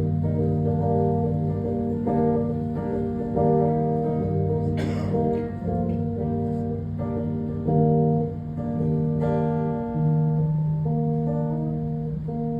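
Acoustic guitar playing an instrumental outro of slow, ringing chords that change every second or two, fading a little near the end.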